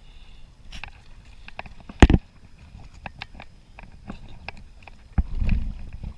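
A series of light clicks and knocks, with a loud thump about two seconds in and another sharp knock about five seconds in followed by a short low rumble.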